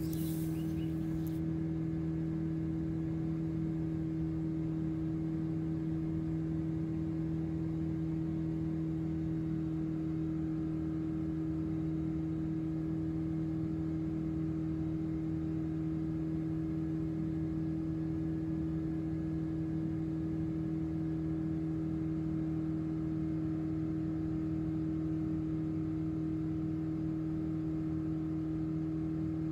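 Steady drone of a light single-engine propeller airplane's engine and propeller at constant cruise power, heard from inside the cabin.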